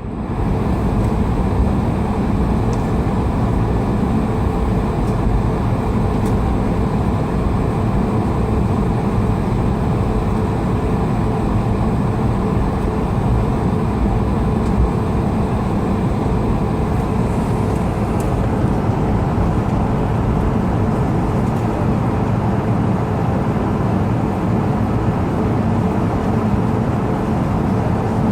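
Steady cabin noise of an Airbus A220-300 with its Pratt & Whitney PW1500G geared turbofan engines running: an even, deep rushing roar with a faint steady hum.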